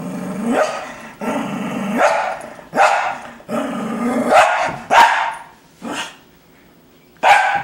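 Cocker spaniel giving a string of about seven drawn-out, pitched barks and grumbles, each under a second, with a short pause near the end: a begging, 'talking' vocalization aimed at the beer on the table.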